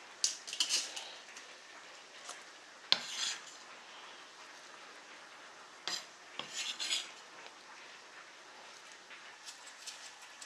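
Clinks and scrapes of a kitchen knife, a wooden cutting board and a stainless steel mixing bowl as chopped green onion and bean sprouts are put together, in short clusters a few seconds apart.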